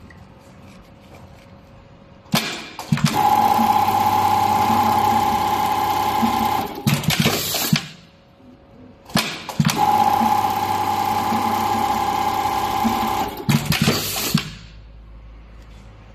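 JACKING JK-9820 keyhole buttonhole sewing machine running two stitching cycles of about five seconds each, with a short pause between. Each cycle starts suddenly, runs with a steady high whine, and ends in a few sharp clunks.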